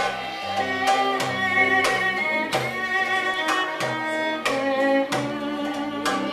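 Live band music: a violin playing a sustained melody over regular drum strikes.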